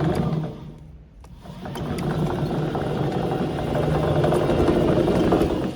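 Remote-control rubber-track chassis running on its brushless DC gear motors, a steady whir with a fine rattle from the tracks. The sound drops away briefly about half a second in, then builds back up as the chassis drives on, and cuts off sharply at the end.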